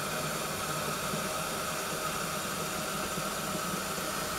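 Tap water running steadily from a kitchen faucet into a plastic gallon jug, filling it.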